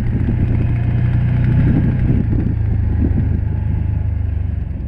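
Can-Am Commander 1000 side-by-side's Rotax V-twin engine running steadily as it drives along, heard from the driver's seat.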